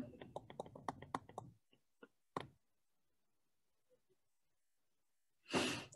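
Light clicking and tapping of a stylus on a touchscreen while a word is handwritten: a quick run of small clicks in the first second and a half, two more about two seconds in, then near silence.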